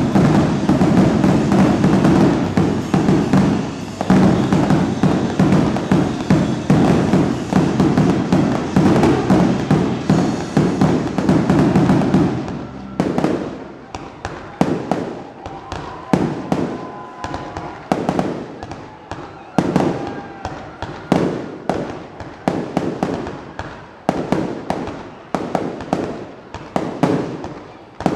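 Fireworks display: a dense, rapid barrage of bangs and crackle for about twelve seconds, then separate sharp bursts going off every fraction of a second.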